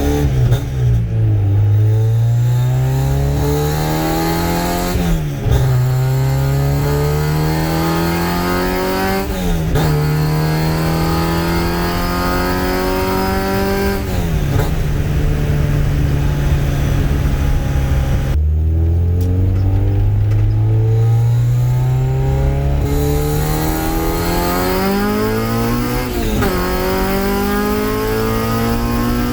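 Honda Civic's H2B four-cylinder engine pulling hard through the gears. The engine note climbs steadily and drops back at each upshift, about five times over two pulls, with a short stretch of steady cruising between them.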